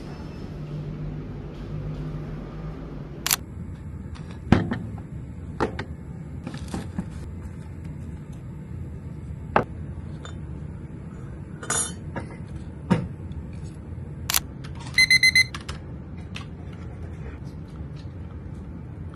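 Scattered light clicks and knocks over a low steady hum, with a quick run of about four short electronic beeps about fifteen seconds in.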